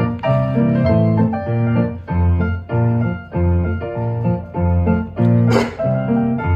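Instrumental backing music of the song, with a steady bass beat under changing chords. About five and a half seconds in there is a short hissing burst.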